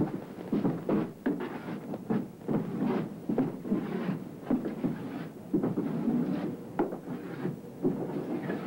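Footsteps and camcorder handling noise: a dense, irregular run of dull thumps and knocks.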